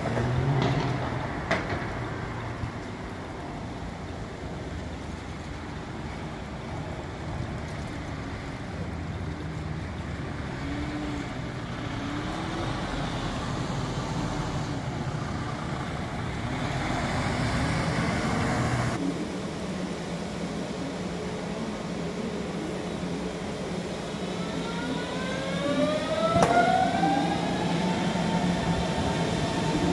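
Electric tram running, with a steady low hum for most of the stretch. Near the end its motor whine of several tones rises in pitch and then holds steady as it pulls away, with a sharp click about the moment the whine levels off.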